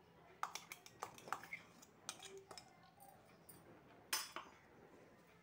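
A few light clinks and taps of a kitchen utensil against a steel mixing bowl, spaced irregularly, with the loudest one about four seconds in.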